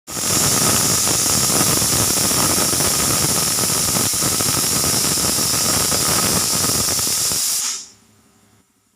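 Pressure cooker whistle blowing: steam forcing past the weighted vent valve in a loud, steady hiss with a faint whistle tone, the sign that the cooker has reached full pressure. It stops abruptly about seven and a half seconds in.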